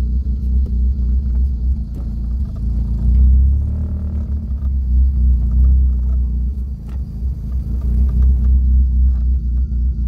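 Motor vehicle driving, a steady low rumble with a few light knocks.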